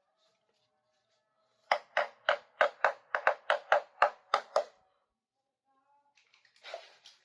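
A quick run of about a dozen sharp plastic taps or clicks, roughly four a second, each with a short ring, as small plastic toy-kitchen pieces are handled. A brief rustle comes near the end.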